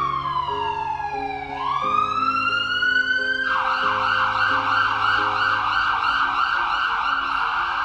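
Emergency-vehicle siren: a slow wail that falls and rises again, then switches about three and a half seconds in to a fast warble. Background music plays under it.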